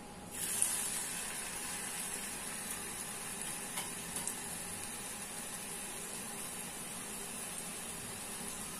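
Rice-flour murukku dough dropped into hot oil: the oil starts sizzling suddenly and keeps up a steady frying sizzle that eases slightly over the following seconds.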